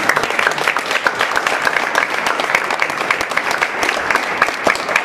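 A group of people applauding: a dense run of many quick hand claps.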